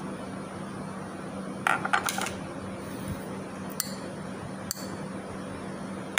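A few light clinks and clatters of kitchen utensils and dishes, the last two with a short metallic ring, over a steady low hum.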